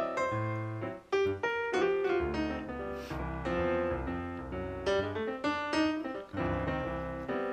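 Background music led by piano or keyboard, with bass notes underneath.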